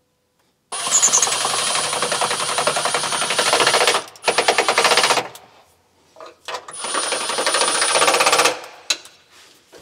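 Cordless impact driver hammering the battery hold-down bolts into M6 riv nuts in the trunk floor pan: a rapid rattling run of about four seconds starting about a second in, with a short break near its end, then a second run of about two seconds.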